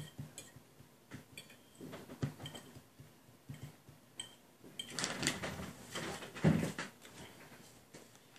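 Knife and fork clinking and scraping on ceramic plates, with a few short ringing pings. About five seconds in comes a stretch of rustling and shuffling, with a dull thump near six and a half seconds as someone moves away from the table.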